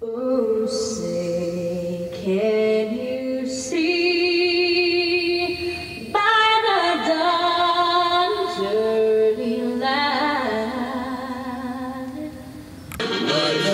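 A woman singing a slow anthem solo, with long held notes and vibrato. Near the end it cuts to a fuller passage.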